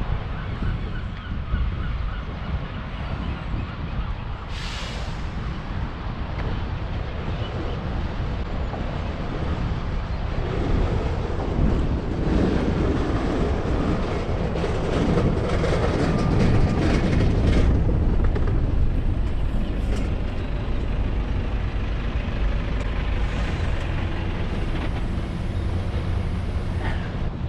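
Outdoor street noise with wind rumbling on the microphone and traffic passing, swelling to its loudest in the middle as a vehicle goes by; a short hiss about five seconds in.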